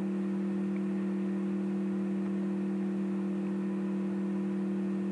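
Steady electrical hum with a few constant low tones over faint hiss, the background hum of the recording, with no other sound.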